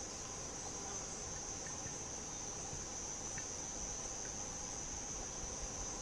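Steady high-pitched insect drone from the summer forest, unbroken throughout, with a few faint short ticks in the background.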